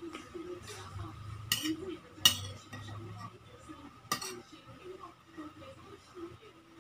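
Metal spoon and fork scraping and clinking against a ceramic plate while scooping up rice, with a few sharp clinks, the loudest about two seconds in.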